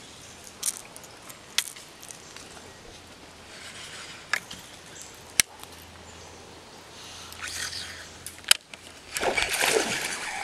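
A fishing rod and spinning reel being handled: about five sharp clicks spread out over quiet creekside background, then louder rustling and water noise starting near the end.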